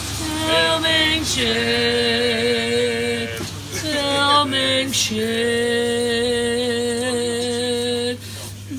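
A singing voice holding long, steady notes of a few seconds each, with short breaks between phrases, over a steady low hum.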